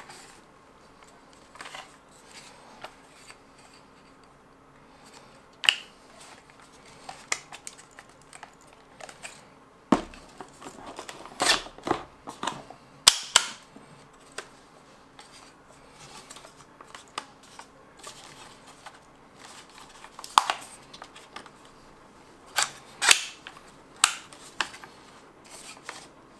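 Irregular sharp clicks and clacks of an ARP9 gel ball blaster's plastic and metal parts as it is handled and its parts are worked, with the loudest clacks about ten to thirteen seconds in and again near the end.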